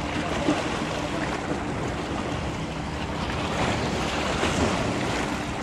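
Small waves washing against shoreline rocks, with wind buffeting the microphone and a steady low hum underneath.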